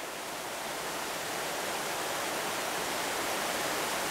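Mountain stream rushing over boulders and small cascades: a steady, dense water noise that grows a little louder over the first couple of seconds.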